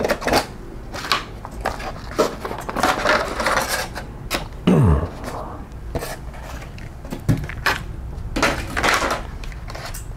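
Cardboard box and plastic packaging rustling and scraping as a boxed AMD CPU cooler is unpacked and lifted out, with short knocks and scuffs of handling and one louder scrape about halfway through.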